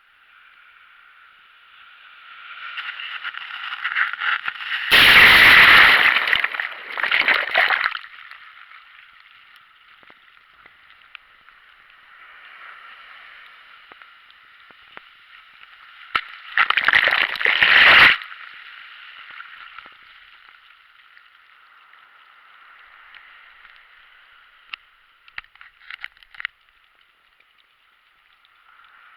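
Seawater sloshing and splashing close to the microphone, with two loud rushes of splashing, about five seconds in and again around seventeen seconds, and a few light splashes near the end.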